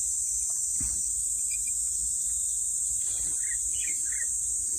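Insects chirring steadily in a high, even buzz, with a few faint short calls about three and a half seconds in.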